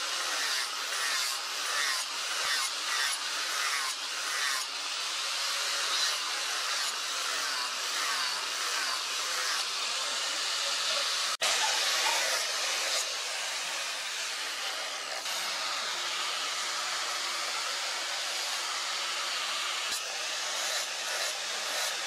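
Angle grinder with an abrasive disc grinding the steel of a forged spear blade: the motor runs with a steady high hiss of disc on metal. During the first few seconds it rises and falls in short repeated passes, then it holds steadier. About 11 seconds in there is a sharp click and a brief dropout.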